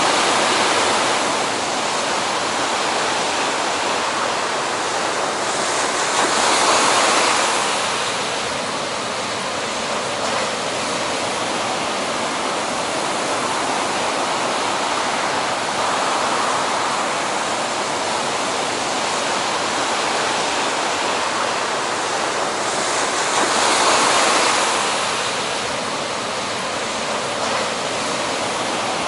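Heavy ocean surf breaking: a steady rush of whitewater that swells louder about seven seconds in and again near the end.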